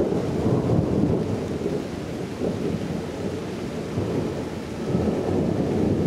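Thunderstorm: a low, continuous rumble of thunder with rain, swelling again about five seconds in.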